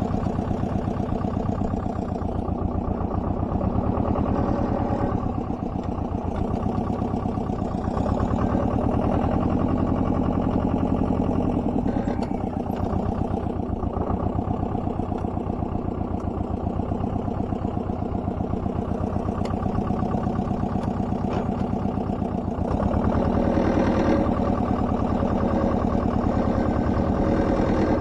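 Small tractor's engine running steadily while driving, heard from the driver's seat; it grows a little louder about three-quarters of the way through.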